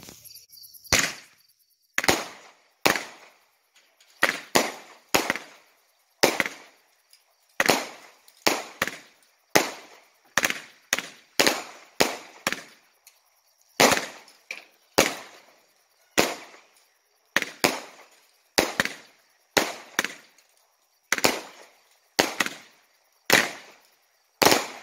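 A 25-shot 200 gram firework cake (Magnus Pit Viper) firing: a string of about two dozen sharp bangs, roughly one every half second to second, each with a short ringing tail.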